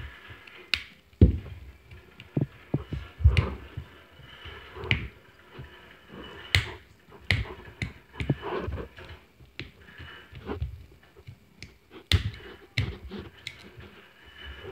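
Plastic wrapper of an L.O.L. Surprise toy ball crinkling and clicking as it is turned in the hands and picked at with fingertips and nails: irregular sharp clicks and crackles, a dozen or more, with soft rustling between them.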